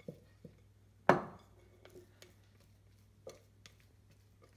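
A spatula working against a glass mixing bowl as bread dough is eased out. There is one sharp knock with a short ring about a second in, then a few light taps and clicks.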